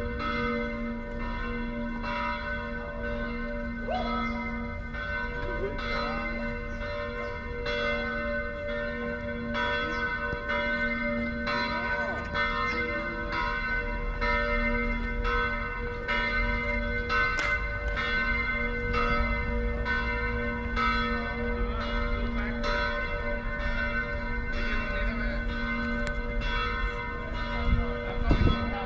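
Church bells ringing a continuous peal, struck over and over in a steady rhythm, with the hum of the bells carrying between strikes.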